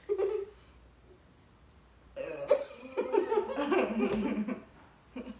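Muffled laughing and giggling from people whose mouths are full of marshmallows: a short burst at the start, then a longer stretch of laughter about two seconds in, and a brief burst near the end.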